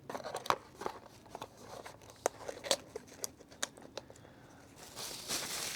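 Packaging being handled while unpacking a box: scattered small clicks and crinkles, then a louder, steadier rustle starting about five seconds in.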